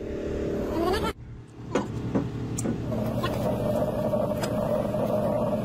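Heavy vehicle engine running steadily, rising in pitch just before an abrupt break about a second in. A few sharp metallic clicks follow, then the steady hum carries on.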